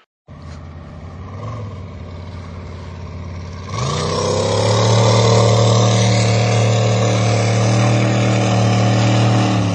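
Jet boat's LS V8 engine running, then throttle opened about four seconds in, after which it holds a loud, steady higher speed.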